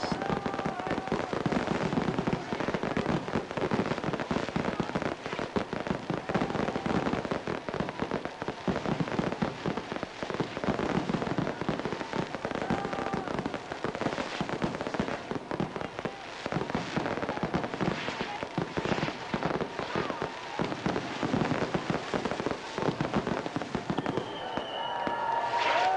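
Fireworks display: a dense, irregular run of bangs and crackling from aerial shells and fountains bursting overhead.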